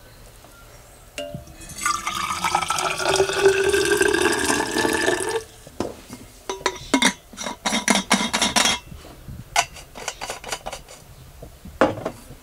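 Coffee poured from a stainless steel pot into a vacuum flask, the pouring tone rising in pitch as the flask fills. Then a run of short metal clinks and knocks as the flasks are handled in the sink.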